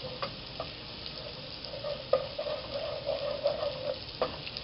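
Chopped garlic sizzling and crackling in hot oil in a metal pot, stirred with a wooden spoon that knocks sharply against the pot a few times, the loudest knocks about two seconds in and near the end.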